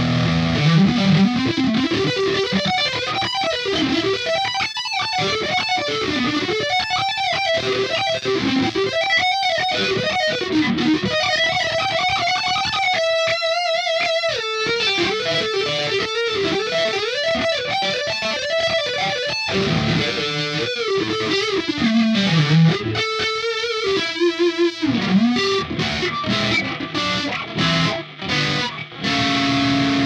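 Swing P-2S electric guitar through a high-gain distorted amp sound from a Line 6 POD HD500, playing a fast single-note lead solo. Held notes with wide vibrato and pitch slides come through the middle, and near the end it breaks into short, choppy stop-start notes.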